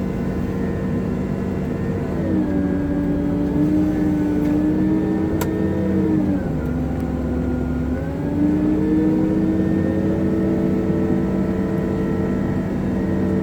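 Hitachi 370 wheel loader's diesel engine working, its pitch dropping about two seconds in, dropping lower again around six seconds, climbing back up near eight and a half seconds and easing off near the end. One sharp click about five and a half seconds in.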